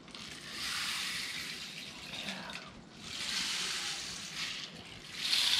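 Rain stick tipped over three times, its pebbles trickling down inside in a rain-like hiss; each pass swells and fades before the next.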